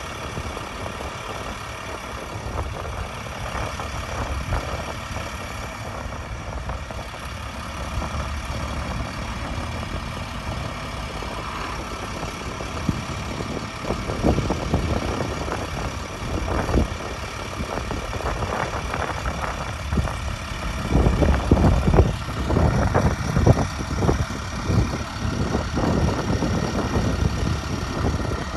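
Truck engine idling steadily. From about halfway on, it is overlaid with irregular louder low thumps and rumbles.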